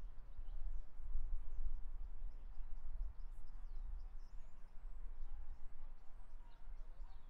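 Outdoor park ambience: a low, uneven rumble with faint, scattered high bird chirps.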